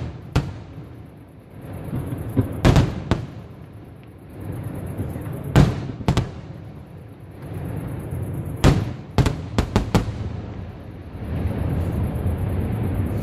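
Aerial firework shells bursting in a display. Sharp bangs come in clusters every two to three seconds, including a quick run of four or five near the end, with a rolling low rumble between them.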